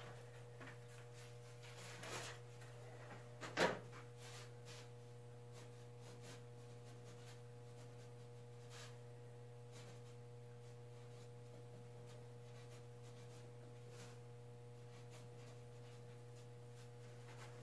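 Steady low hum in a small room, broken by a few light knocks and one sharp clack about three and a half seconds in, then faint scratching of a pencil marking a foam surfboard blank.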